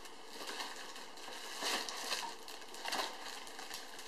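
A cardboard toy box being pulled open and a toy in plastic wrap taken out: irregular rustling and crinkling in short bursts, loudest about halfway through.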